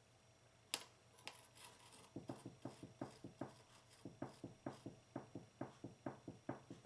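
A quick run of light taps and knocks, about four a second, as fingers press and nudge ceramic thermoelectric modules bedded in silicone on a metal baking tray. Two sharper clicks come first, about a second in.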